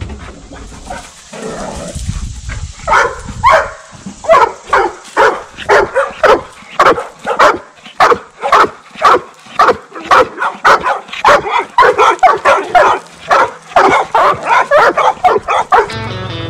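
A dog barking excitedly in a long, rapid string of barks, about two a second, after a quieter start. Music comes in at the very end.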